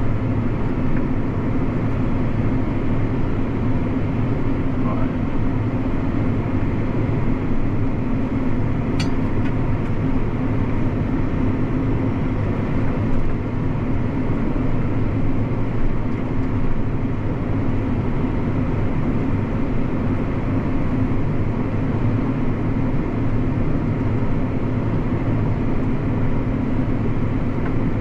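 Tractor engine running steadily as a low, even drone, heard from inside the cab. There is a single faint click about nine seconds in.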